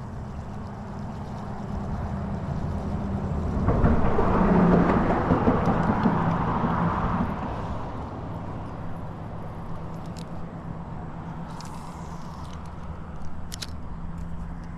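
A vehicle passes by, swelling up to its loudest about four seconds in and fading away over the next few seconds, over a steady low hum.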